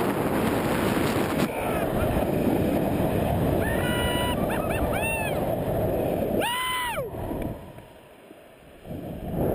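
Wind rushing over the microphone as a canyon swing carries the rider fast through its arc, with several short high yells about four to five seconds in and one longer high scream that rises and falls around six and a half seconds. The rush dies away for about a second and a half near the end, then returns.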